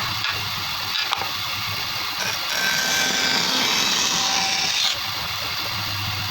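Woodworking power tool running steadily with a high whine, its sound shifting slightly a couple of times as it works the wood.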